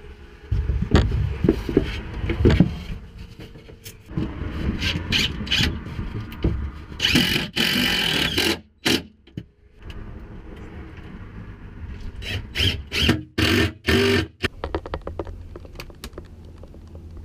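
Plywood panel knocked and bumped into place, then a DeWalt cordless drill/driver running in several short bursts as it drives screws into the wood.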